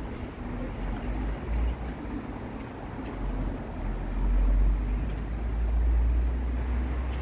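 Outdoor city ambience: a steady low rumble and hiss, growing louder about four seconds in.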